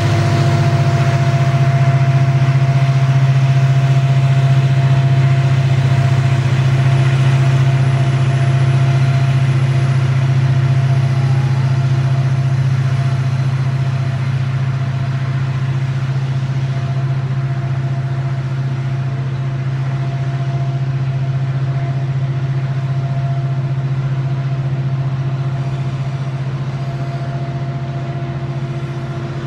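Diesel locomotives of a loaded coal train running past with a loud, steady low drone, while the coal hopper wagons roll by; the sound slowly fades toward the end.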